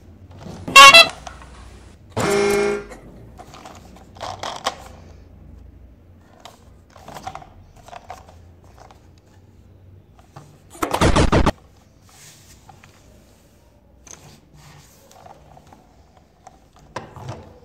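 Plastic toy train handled in a cardboard box: scattered clicks and knocks, a very loud short burst about a second in and another midway through, and a short pitched honk about two seconds in.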